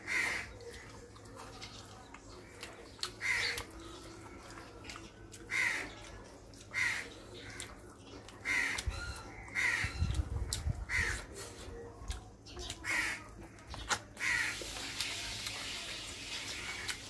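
Crows cawing repeatedly, a short harsh call every second or two.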